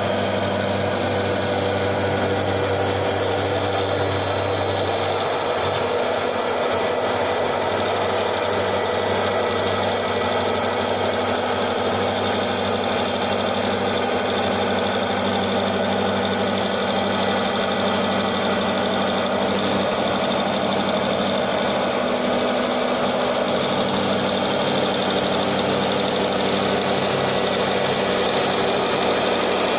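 Electric octa cloth-cutting machine, with a rotary octagonal blade, running steadily as it cuts T-shirt fabric: an even motor hum and whine.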